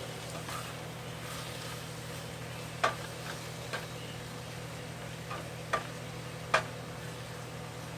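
Diced zucchini and summer squash with minced garlic sizzling steadily in a frying pan, with about five sharp ticks scattered through the middle and a low steady hum underneath.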